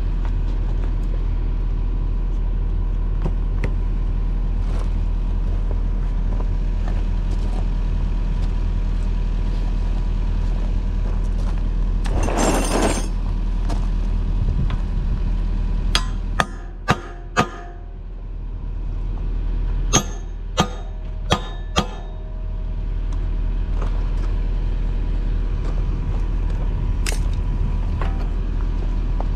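Yanmar mini excavator's diesel engine idling steadily. A little past the middle come two quick runs of four sharp knocks, and the engine note dips for a few seconds while they sound.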